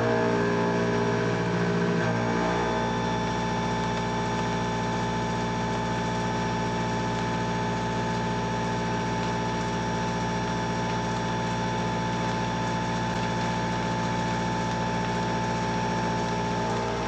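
Long-edge helical milling cutter with indexable inserts taking a deep side cut in a tool-steel block on a CNC milling machine: a steady machine drone of many fixed tones that holds unchanged throughout.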